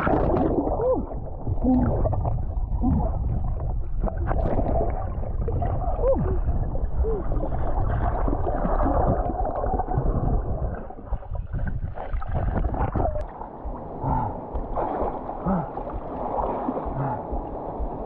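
Underwater bubbling and water rush picked up by a submerged camera in a river pool. The sound is muffled and rumbling, with short gurgling pitch sweeps from rising bubbles. It thins out and gets patchier after about thirteen seconds.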